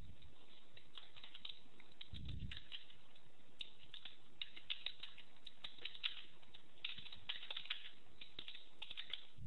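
Typing on a computer keyboard: irregular runs of light key clicks, with a soft low thump about two seconds in.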